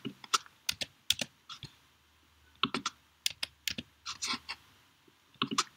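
Typing on a computer keyboard: irregular keystrokes in short runs, with a pause of under a second near the middle.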